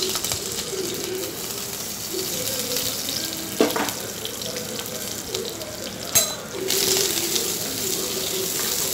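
Sliced onion and curry leaves sizzling in hot oil in a clay pot as they are sautéed, a steady frying hiss. Two sharp knocks break through, one about three and a half seconds in and another about six seconds in.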